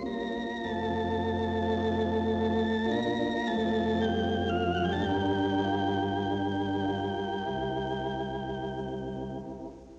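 Organ music: slow held chords with a wavering tremolo, the melody dipping briefly about halfway through, then fading into a short pause near the end.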